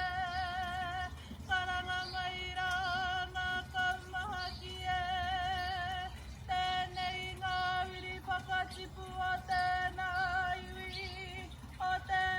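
A woman's solo voice calling in long, high, wavering held notes with short breaks between phrases: a karanga, the women's ceremonial call that opens a Māori pōwhiri.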